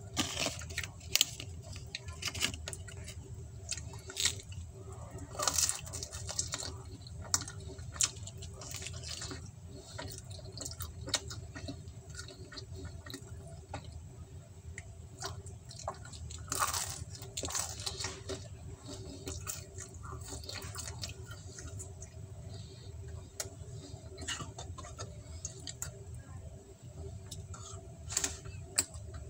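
Wet chewing and smacking mouth sounds of someone eating pizza, made up of many short clicks over a steady low hum.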